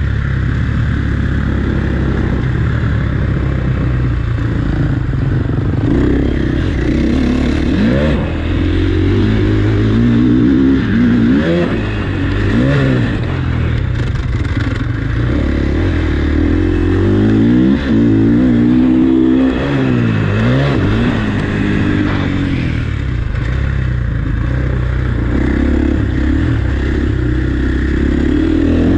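KTM motocross bike's engine revving up and easing off over and over as it is ridden hard around a dirt track, with a few brief drops where the throttle is shut.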